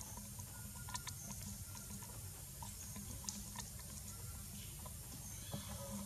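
Outdoor forest ambience: a steady low rumble with scattered faint clicks and brief high chirps.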